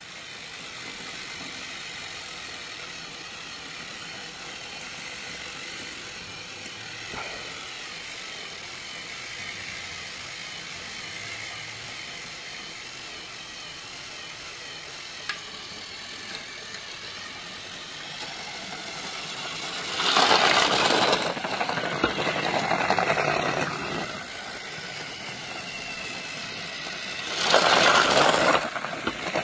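A motor running with a rattle. It is a steady hiss for most of the time, then much louder rattling stretches come about twenty seconds in and again near the end.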